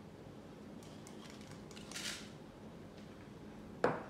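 Quiet handling of small cups over a saucepan: faint soft ticks, a brief soft rustle about halfway as a cup's contents are tipped out, and a light tap near the end.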